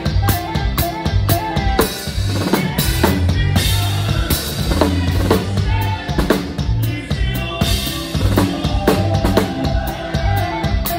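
Acoustic drum kit played live and close up, kick, snare and cymbals keeping a steady beat under the rest of a band's instruments.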